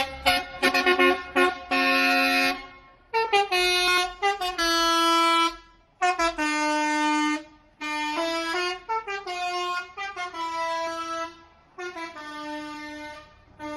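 Bus "telolet" horn, a multi-tone musical air horn, playing a tune in a string of phrases. Rapid toots come first, then longer held notes that step up and down in pitch, with short pauses between phrases.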